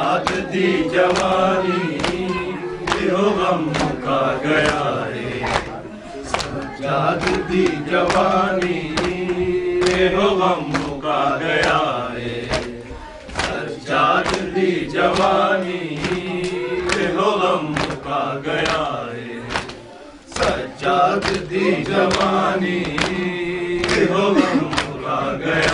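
Voices chanting a Punjabi noha, a Shia mourning lament, over a steady beat of sharp slaps from mourners beating their chests (matam), roughly one or two slaps a second.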